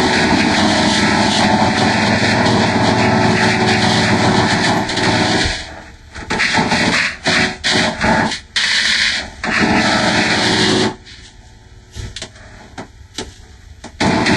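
Heavily distorted, many-times-layered playback of a Fisher-Price Laugh and Learn puppy toy's sounds, smeared into a loud, harsh wash of noise. About five and a half seconds in it starts cutting in and out choppily, then drops to a quieter crackly stretch before surging back at the end.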